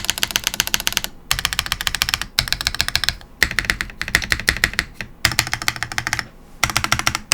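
Fast typing on a QK101 full-size custom mechanical keyboard with a CNC-machined aluminum case. The keystrokes come as rapid clicking runs of about a second each, with short pauses between them.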